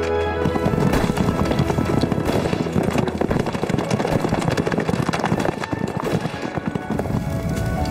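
Horses' hooves clattering rapidly in the street as riders pass, the strikes thinning out in the last couple of seconds, over background music.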